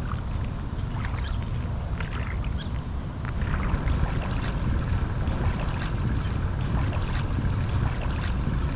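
Double-bladed paddle dipping and splashing in the water beside an inflatable kayak, in scattered short splashes over a steady low rumble of wind on the microphone.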